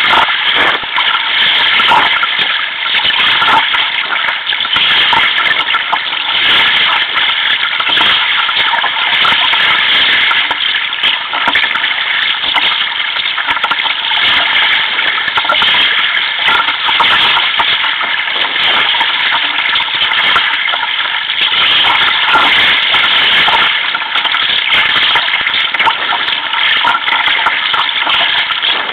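Steady, loud rush of choppy sea water against a sea kayak's hull and deck as it is paddled, mixed with wind, heard close up from a camera fixed on the deck.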